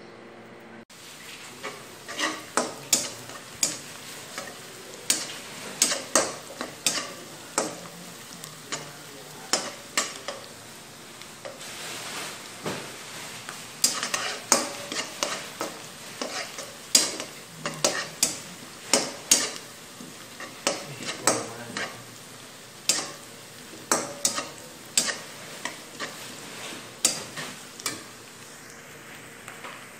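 A spatula stirring and scraping in a frying pan while food sizzles in hot oil. There are irregular knocks and scrapes, about one or two a second, over a steady sizzling hiss.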